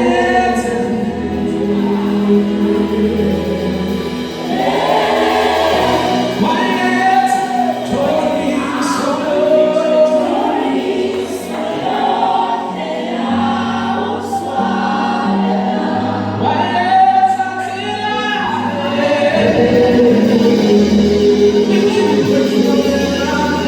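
Gospel choir singing a praise song, several voices in harmony over low held bass notes that change every few seconds.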